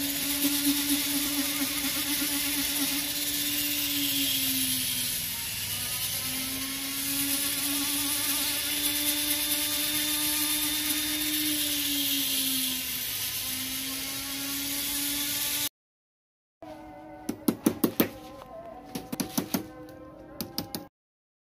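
Handheld rotary tool with a sanding bit whirring steadily as it grinds a small metal ring, its pitch dipping twice as it is pressed into the work. After a short break, a small hammer taps metal on a block in quick clusters of sharp, ringing strikes.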